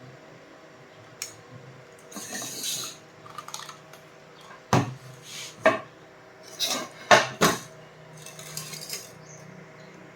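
Metal tools and small metal parts clinking, knocking and scraping as they are handled, in a string of separate sharp clinks and short scrapes, over a faint steady hum.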